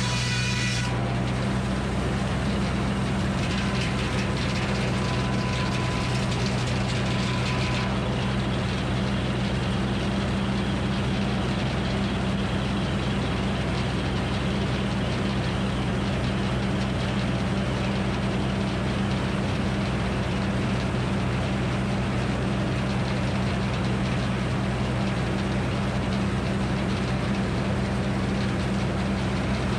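Frick circular sawmill running: a steady, loud mechanical drone from its power unit and spinning blade. A ringing whine dies away about a second in, and a higher hiss rises between about three and eight seconds in.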